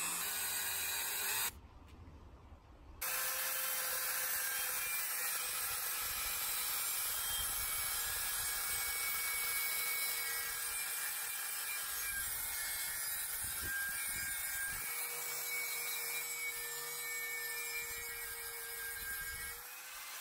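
Angle grinder running steadily with its wheel against the corroded brass tank of an antique blowtorch, stripping the patina. It drops out briefly about two seconds in, then runs on at an even speed.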